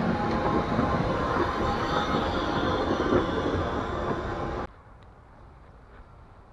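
DR class 86 steam tank locomotive 86 1744-1 rolling past at close range: a steady, noisy rumble of wheels on rail with a light high squeal. It cuts off abruptly about four and a half seconds in, leaving quiet outdoor background with a couple of small clicks.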